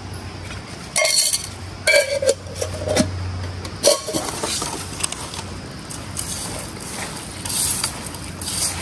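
Kitchen utensils and dishes clinking and knocking: four separate knocks, one a second for the first four seconds, one of them ringing briefly, then softer scraping.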